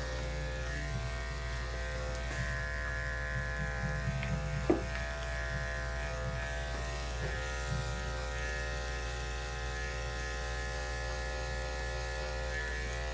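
Electric pet grooming clippers running with a steady buzz while shaving a cat's belly fur, with one sharp click about four and a half seconds in.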